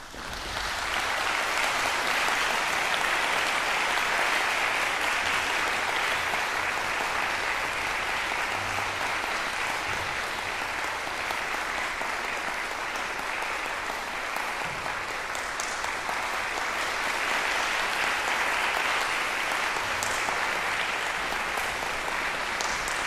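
Audience applause, breaking out suddenly and continuing steadily as sustained clapping.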